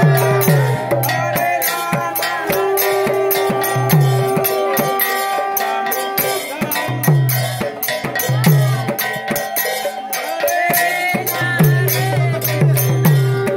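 Devotional kirtan music: brass hand cymbals (kartals) clashing rapidly over deep drum strokes that slide down in pitch, with a steady held tone that comes and goes.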